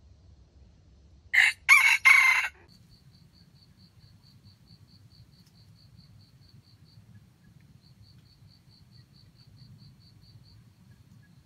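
A red junglefowl rooster crows once: a short, loud three-part crow of about a second that ends abruptly. Afterwards a faint, high ticking sounds about five times a second, with a pause near the middle.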